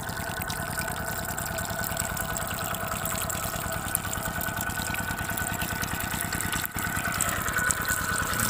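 A small engine running steadily, with a fast even low pulsing and a steady hum, over shallow water rushing across a grassy bank.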